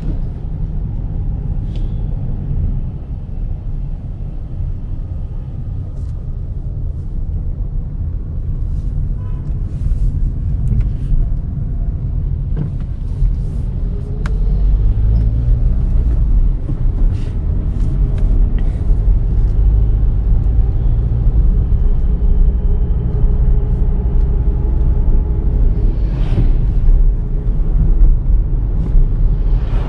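Volkswagen Virtus GT's 1.5-litre turbocharged four-cylinder petrol engine running on the move over a low rumble of road and tyre noise, with scattered small clicks. About halfway through it gets louder, and a steady engine note rises slowly as the car pulls.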